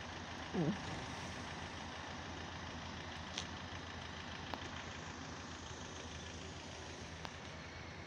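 Motor vehicle engine idling steadily in the street, a low even hum. About half a second in there is a brief, loud sliding sound, and a few faint clicks follow later.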